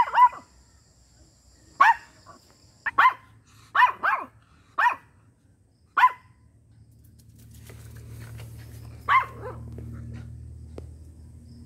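Miniature pinscher barking: about ten short, sharp barks, coming quickly over the first six seconds, then one more later. A low steady rumble runs underneath in the second half.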